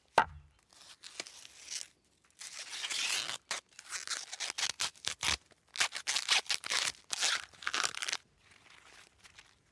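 Dry, papery material being torn and crinkled in a string of quick rustling tears, with a single sharp knock just after the start.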